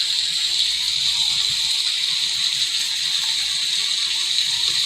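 Steady hiss of a rain-sounds recording: even, unbroken rainfall noise with no single drops or thunder standing out.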